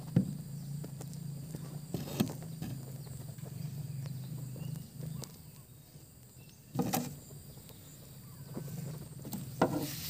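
A few short knocks on wooden planks, spread several seconds apart, over a steady low hum and faint outdoor background.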